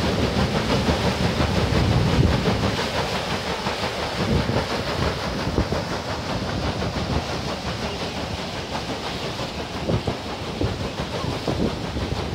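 Paddle wheel of a steam paddle steamer churning the river: a steady rush of water with a fast, uneven beating of the paddle floats.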